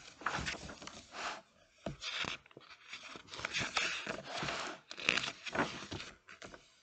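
Hardcover picture book being opened and its paper pages turned by hand: a series of short paper rustles and page flips.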